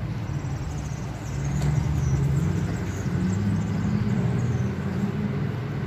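Motor vehicle engine running with road noise, a steady low hum that grows a little louder about a second in.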